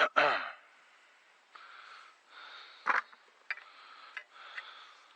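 A person's loud snort right at the start, falling quickly in pitch, then soft breathing. About three seconds in comes a sharp knock, followed by a few light clicks.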